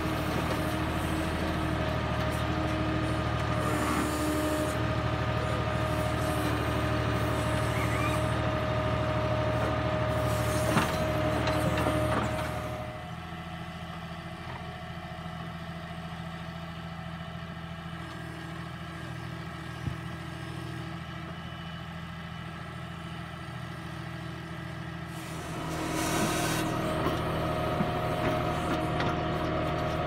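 Diesel tractor engine running steadily under load as it drives a tractor-mounted Bull V2 backhoe digging earth, with a steady high tone over the engine note. The sound drops to a quieter level a little before halfway and comes back up loud near the end.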